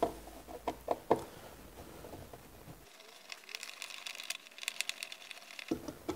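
A small flathead screwdriver turning out a wall outlet's mounting screws, tip clicking and scraping on the screw heads. There are a few sharp clicks in the first second, then a quicker run of light ticks and scraping a few seconds in.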